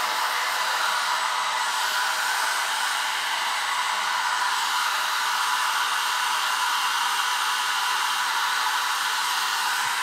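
Handheld hot-air blower running with a steady, even rushing hiss. It is warming the end of a rubber gas hose to soften it so it can be pushed onto a fitting.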